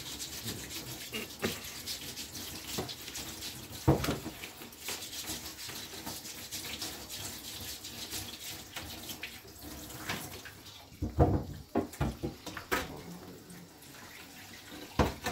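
Kitchen tap running into a sink, with scattered knocks of things being handled in the sink; the loudest knocks come about four seconds in and around eleven seconds in.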